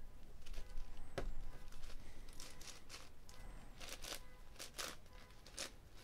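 Plastic layers of a Meilong 10x10 speedcube being turned by hand: a run of irregular clacks and short scraping slice turns, several a second, as the last edge pieces are paired.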